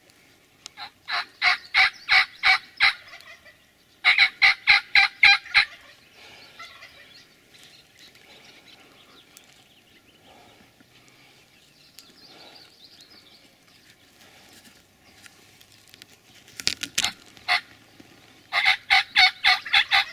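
Wild turkey yelps: three runs of sharp, evenly spaced notes, about five a second. One comes about a second in, one near four seconds, and one near the end, just after a few lone sharp notes.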